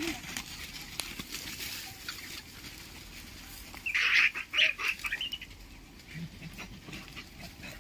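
Rhesus macaques squabbling over food, one giving a few loud, shrill screeches in quick succession about four seconds in.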